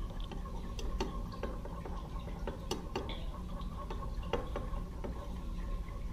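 Faint light clicks or ticks at uneven intervals, about one or two a second, over a steady low hum.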